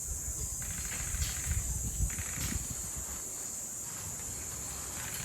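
Steady high-pitched insect buzzing, with low wind rumble on the microphone and a few brief scratchy noises about one and two seconds in.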